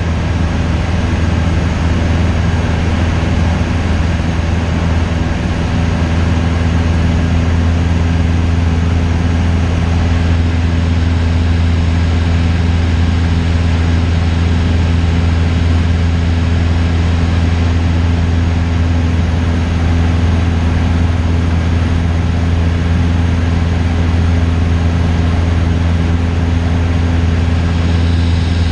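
Cessna 172's piston engine and propeller droning steadily in flight, heard from inside the cabin, with a low, even hum and a hiss of air over the airframe.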